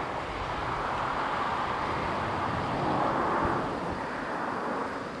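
A distant vehicle's rushing noise that swells to its loudest about three seconds in and then fades.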